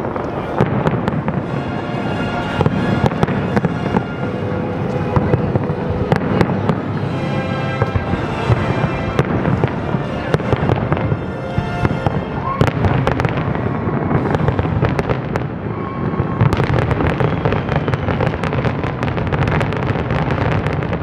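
Fireworks display in a continuous barrage: many shells bursting and crackling at once, with music playing underneath. The crackle thickens about three-quarters of the way in.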